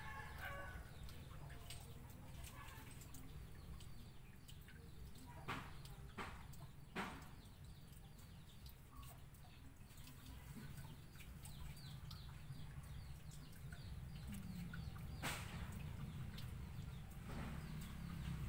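Chickens clucking faintly in the background over a steady low rumble. A few sharp clicks come through, three around the middle and one later.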